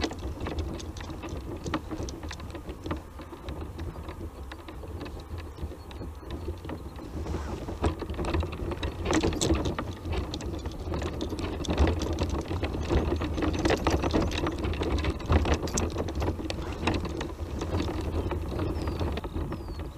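Tramper off-road mobility scooter driving up a rough stony track: its tyres crunch and clatter over loose stones and the machine rattles over the bumps, over a steady low rumble. The clatter gets busier and louder about halfway through.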